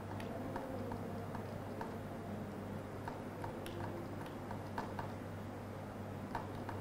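Faint, irregular clicks from a laptop's keys and mouse buttons, about one or two a second, over a low steady electrical hum.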